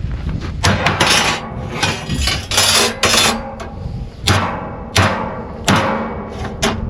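Hammer blows on steel plate, about nine ringing strikes at an uneven pace, beating a piece of the skid steer's steel back flat.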